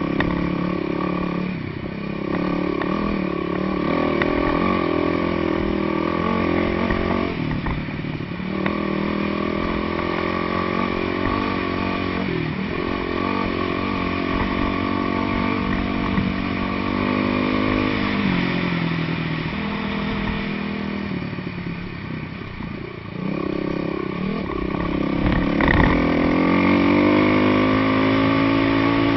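Dual-sport motorcycle engine running under way, its pitch stepping up and down with the throttle and climbing steadily over the last few seconds.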